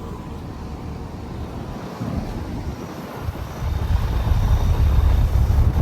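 Outdoor heat pump condensing unit (4-ton, Genteq ECM condenser fan motor) running: a steady rush of fan air with a low hum. The low rumble grows noticeably louder a little past halfway, as air buffets the microphone.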